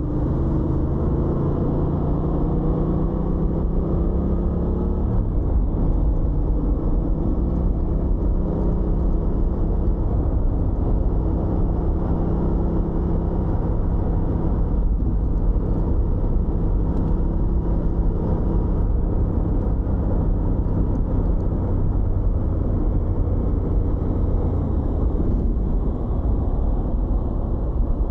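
Suzuki GSX-8R's parallel-twin engine under way, its pitch climbing for about five seconds and then dropping at a gear change. After that, a steady engine drone mixed with wind noise at riding speed, heard from the rider's backpack.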